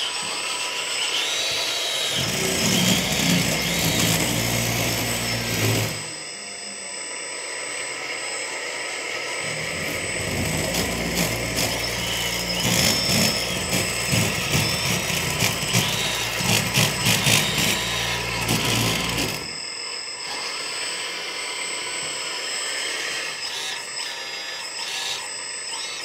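Electric hydraulic pump of a 1/14 LESU hydraulic RC road roller running with a steady whine. A lower whirr from the drive motor and gears joins twice as the roller drives, from about two to six seconds in and again from about ten to nineteen seconds in.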